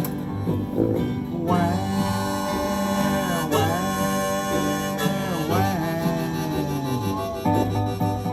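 Acoustic blues band playing an instrumental break: plucked guitar and dobro over sousaphone bass notes. A long held wailing lead line comes in after about a second and a half and dips down in pitch twice before fading near the end.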